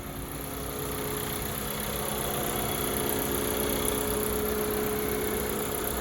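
2019 Audi A4 engine idling steadily with the air conditioning running on its newly replaced compressor, a steady hum over the engine noise.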